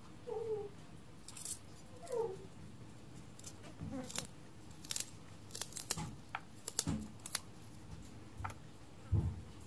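Knife slicing small onions held in the hand, with the pieces dropping into a steel bowl: scattered light clicks and taps. Two short squeaks sound in the first few seconds.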